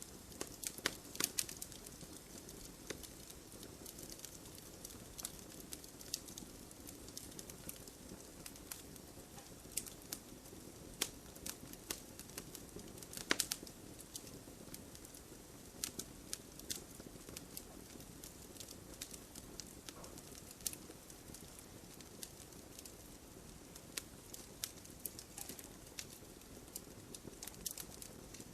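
Campfire crackling: irregular sharp pops and snaps over a low, steady rush of burning. There is a cluster of louder pops about halfway through.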